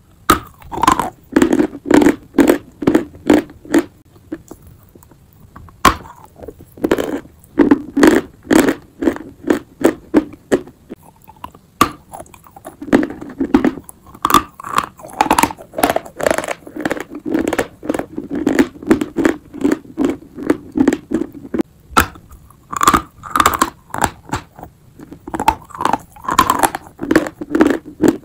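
Dry block chalk being chewed close to the microphone: loud crunches about two to three a second, in runs broken by short pauses, with a few sharp snaps.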